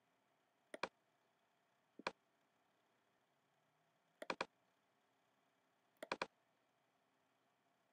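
Faint clicks in four short clusters, about a second in, at two seconds, past four seconds and about six seconds in, as the controls of an audio-editing app are pressed; the last two clusters are three quick clicks each. Near silence between them.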